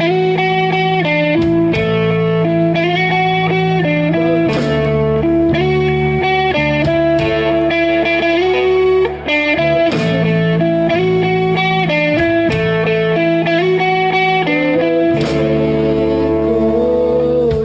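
Rock band playing live without vocals: an electric guitar plays a stepwise melody of held notes over bass guitar and drums.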